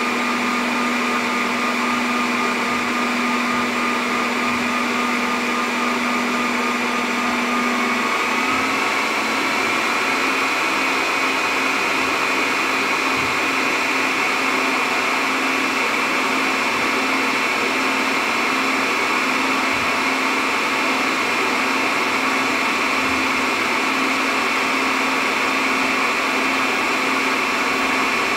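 Dell PowerEdge R720xd server's cooling fans running with a steady rush of air and whine while the server boots. About eight to ten seconds in, the whine steps up slightly in pitch as the fans speed up.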